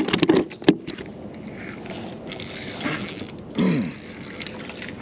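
A few sharp knocks in the first second, then a small geared mechanism whirring and clicking steadily, with a short falling squeak a little past the middle.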